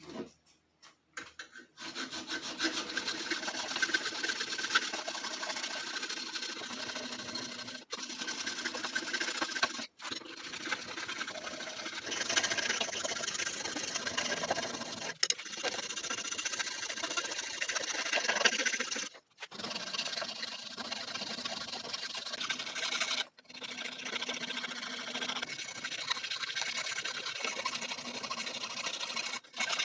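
Hand file rasping back and forth across an aluminum block, a continuous stroke-after-stroke scraping, with a few brief breaks.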